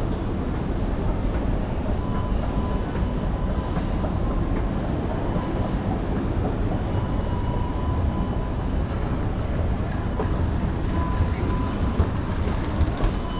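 Moving escalator running with a steady low noise while it is ridden, with a faint high hum that comes and goes.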